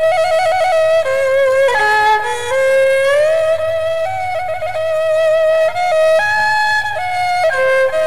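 Tro Khmer, the Cambodian three-stringed spike fiddle, playing a slow solo melody with wavering vibrato and sliding notes, including a long upward slide about three seconds in.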